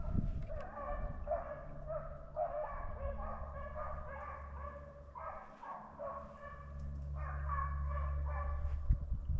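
Beagles baying on a rabbit's track: a run of repeated yelping cries in quick succession while the hounds chase the rabbit by scent. A steady low rumble underneath.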